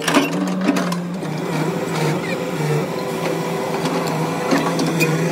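A machine running with a steady, even hum, with scattered sharp clicks and knocks over it.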